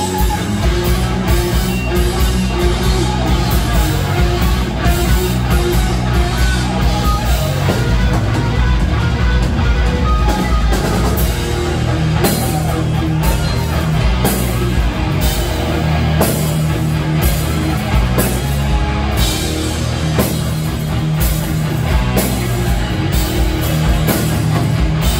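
Live rock band playing: electric guitars and a drum kit keeping a steady beat, with a heavy low end.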